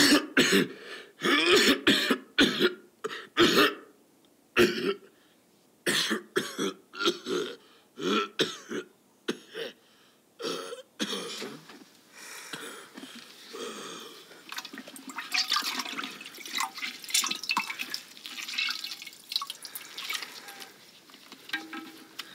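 A man coughing in repeated harsh fits for about the first ten seconds. After that come softer, wet liquid sounds with many small crackles as a stick stirs in a clay pot.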